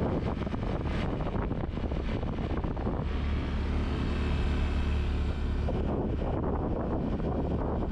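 Wind buffeting the microphone of a moving Yamaha Mio Gravis scooter, over a steady rush of engine and tyre noise on a concrete road. The wind rumble grows heavier for a couple of seconds in the middle.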